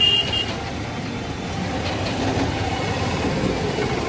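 Street traffic noise: a steady rumble of passing vehicles, with a vehicle horn that cuts off about half a second in.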